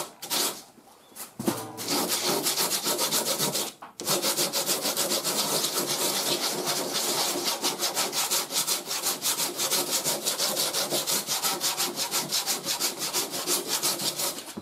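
Hand sanding block with coarse 36-grit paper scraping back and forth over hardened body filler on a vehicle panel, in quick, even strokes. There is a short pause about a second in and a brief break just before four seconds.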